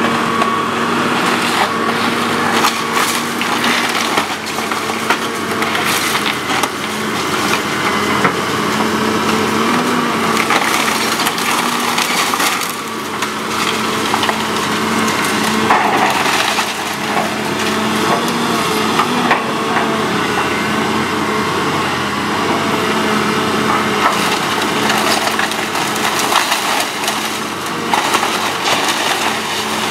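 Excavator bucket tearing into a fire-charred wooden house: timber cracking and splintering and debris crashing down again and again, over the steady drone of the machine's engine.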